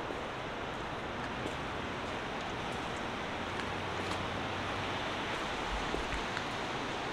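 Steady wash of downtown city street noise, mostly traffic, with a faint low hum in the middle and a few faint scattered clicks.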